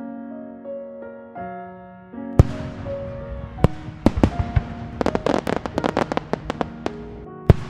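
Fireworks going off over background music: a sharp bang about two and a half seconds in, a few more single bangs, then a dense run of crackling pops around the middle.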